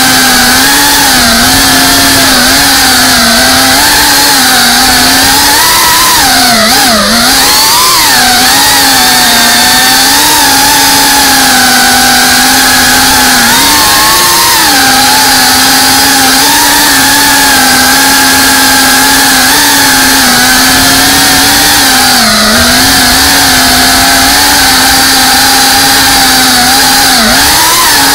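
Quadcopter drone's electric motors and propellers whining loudly and continuously, the pitch dipping and swinging with throttle changes several times, most sharply about seven seconds in.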